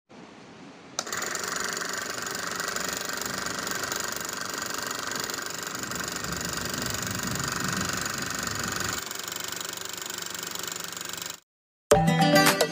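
Small DC motor driving a homemade crank-and-piston air pump, running steadily as it pumps air through a tube into water. It starts about a second in and cuts off suddenly near the end.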